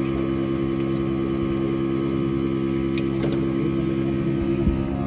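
Portable 12 V battery-powered milking machine's vacuum pump running with a steady hum. Some of its tones drop out near the end.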